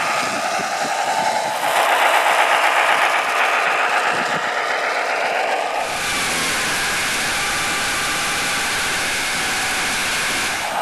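RC scale model Tatra 130 truck's motor and gearbox whirring as it drives through sand. About six seconds in, the sound switches abruptly to a steady, even rushing noise picked up by a camera mounted in the truck's cab.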